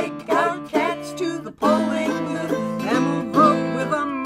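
Country-style music with plucked acoustic guitar.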